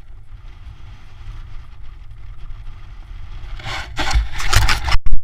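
Wind buffeting the camera microphone as a rope jumper drops from a power-line pylon: a low rumble that slowly builds, then loud rushing air about three and a half seconds in, cutting out for an instant near the end.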